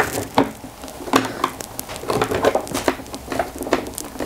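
A screwdriver backing out the cover screws of a plastic LED bulkhead light, with irregular small clicks and brief scrapes of the tool against the screw heads and plastic housing.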